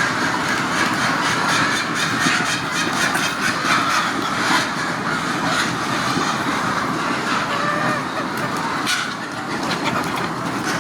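A flock of chickens keeps up a steady din of clucking and scattered calls.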